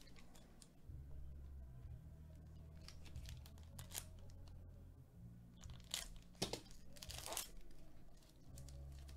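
A foil trading-card pack wrapper being torn open and crinkled by hand. The tearing comes in short rustles about three to four seconds in, and the loudest tearing about six to seven and a half seconds in.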